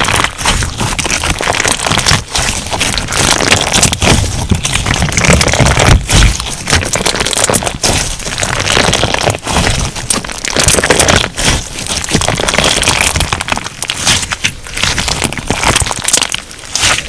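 Crunch slime being squeezed and kneaded by hand, giving a dense, steady crackle of many small pops and crunches that eases briefly now and then.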